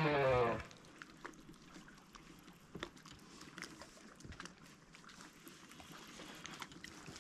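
Guitar music cuts off within the first second. What follows is faint water sound around a fishing kayak, with scattered small clicks and knocks from the hull and fishing gear.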